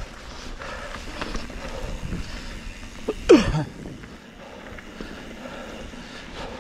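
2021 Trek Slash 7 mountain bike rolling down dirt singletrack, heard from an onboard GoPro: tyres rumbling over dirt and rock with steady clattering knocks from the bike. A little over three seconds in, a brief loud sound drops sharply in pitch.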